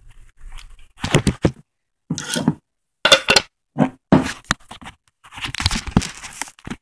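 Handling noise around an open glass jar of coconut oil: a series of about six short scraping, rustling bursts with sharp clicks, separated by brief gaps.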